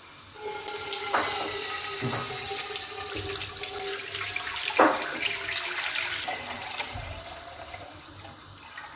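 Meat stock poured through a metal mesh sieve into a large pot: a steady splashing stream that starts about half a second in and tapers off near the end. A few knocks sound along the way, the loudest about five seconds in.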